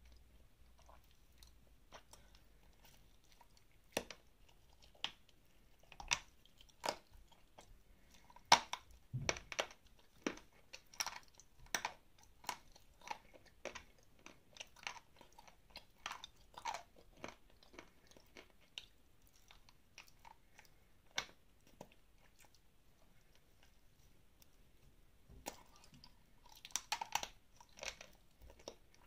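Close-up biting, crunching and chewing of dry, dark grey clay chunks: sharp crisp crunches at an irregular pace, few at first, then many, a lull, and a quick run of crunches near the end.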